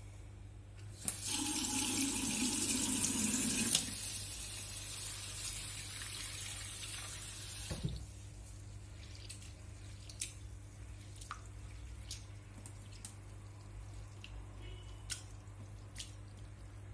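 Water from a kitchen tap running hard for a few seconds, then more gently until it stops about eight seconds in, followed by scattered drips and light clicks.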